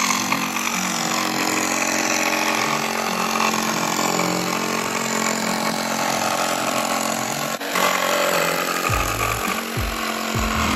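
Milwaukee 12-volt cordless jigsaw with a Diablo blade running steadily while cutting curves through a thin MDF sheet. The sound dips for a moment about two-thirds of the way through, then goes on at the same level.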